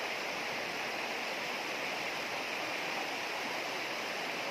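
Shallow rocky mountain stream rushing over stones, a steady, even rush of water.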